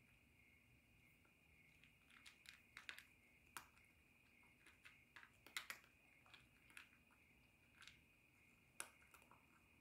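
Faint, irregular crunching clicks of a calico cat chewing dry kibble, over a steady high-pitched drone.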